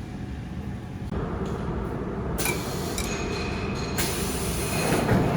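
Machinery running steadily, a rumble and hiss that grows fuller about a second in, with thin high whining tones for a second or so in the middle.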